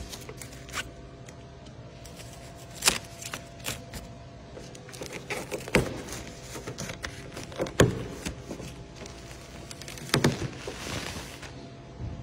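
White protective cover being pulled and peeled off the underside of a car bonnet: rustling and crinkling, with sharp crackles at intervals, the loudest about three, six, eight and ten seconds in.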